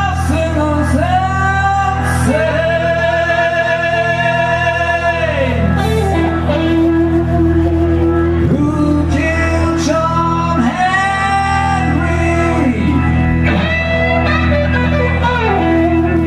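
Blues-rock band playing live: a singer holding long notes over guitar, bass and drums.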